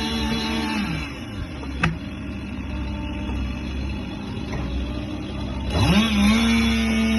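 Excavator engine running with a steady hum that drops away about a second in, then revs back up to a held pitch about six seconds in. A single sharp knock comes near two seconds in.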